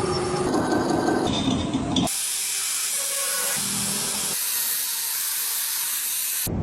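Mixed mechanical workshop noise, then, about two seconds in, an abrupt change to a steady, even hiss like a spray or air jet that stops suddenly near the end.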